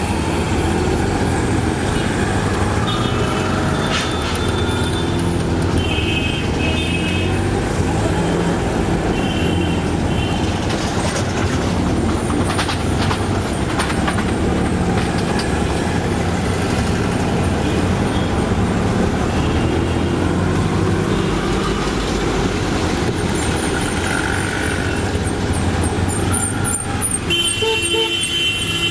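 Auto-rickshaw engine running under way amid street traffic, with short horn toots sounding several times, a few early on and one near the end.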